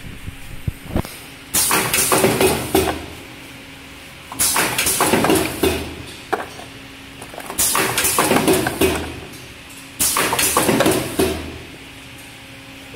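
Small folded paperboard boxes rustling and clattering against each other as a hand rummages through a pile of them, in four bouts about three seconds apart, over a faint steady hum.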